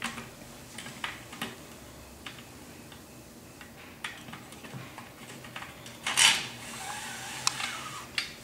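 Plastic belt buckle and toothed drive belt being pushed and slid through a curtain track: scattered light clicks and scrapes, with a louder scraping rush about six seconds in and softer sliding after it.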